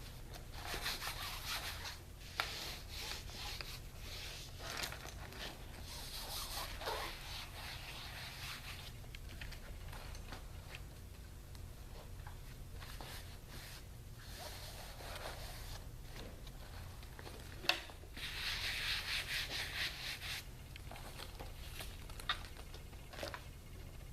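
Cloth wiping over a Chromebook's surfaces in several stretches of rubbing strokes, with a sharp click about 18 seconds in and a steady low hum underneath.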